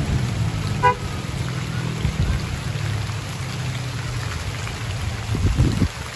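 Minibus engine running steadily in heavy rain, with a short horn toot about a second in.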